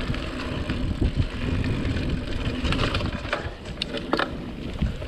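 Marin Bobcat 3 hardtail mountain bike ridden fast over a dirt trail: a steady rumble of tyres on the ground, with scattered sharp clicks and knocks from the bike rattling over bumps.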